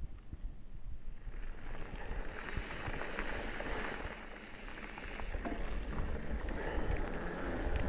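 Mountain bike being ridden: wind rushing over the action camera's microphone with tyre rumble and scattered small clicks from the bike, swelling about a second and a half in as the bike picks up speed.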